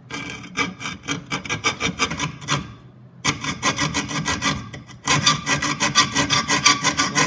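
Handheld saw blade cutting through a thin sheet-metal bracket tab in quick back-and-forth strokes, about five a second, with a short pause about three seconds in.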